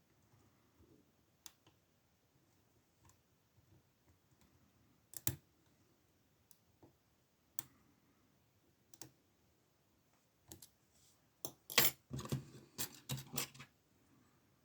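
Lock pick clicking and scraping against the pins inside an old Ruko padlock: scattered faint ticks, then a quick run of louder clicks about twelve seconds in.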